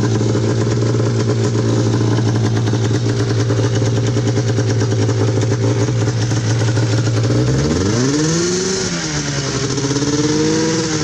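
Engine of an engine-swapped John Deere Gator UTV running loud through a chopped shorty exhaust, holding one steady pitch. In the last few seconds it revs up, drops back and climbs again.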